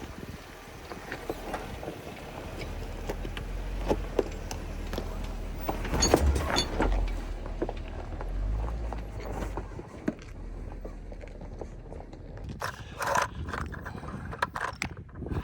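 2014 Jeep Wrangler Rubicon crawling over rocks: a low engine rumble that swells for a few seconds in the middle, with scattered crunches and knocks of tyres and suspension on rock, loudest about six seconds in.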